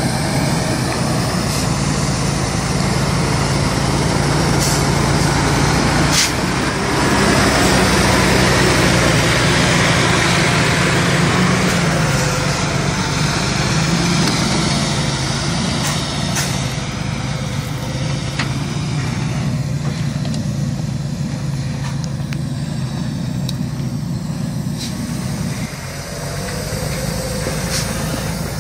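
Diesel engine of a MAN log truck running under load as it climbs a steep dirt track, a steady low engine note that shifts in pitch and grows louder about six seconds in. A few sharp clicks.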